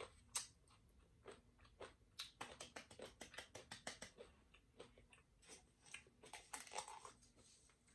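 Faint, close-miked chewing of crunchy tortilla chips with queso dip: a run of quick crunches, most rapid between about two and four and a half seconds in, then slower.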